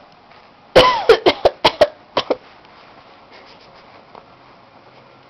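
A fit of coughing: about six sharp coughs in quick succession over roughly a second, then two more short ones, after which it goes quiet.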